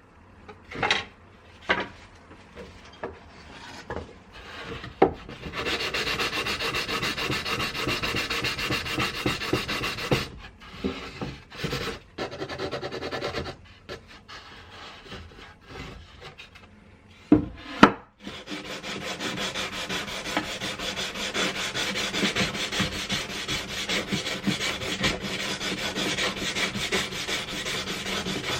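Wood being hand-sanded: fast, even back-and-forth rubbing strokes in two long runs, the first starting about five seconds in and the second about eighteen seconds in. A few sharp knocks come before the first run, and two louder ones come just before the second.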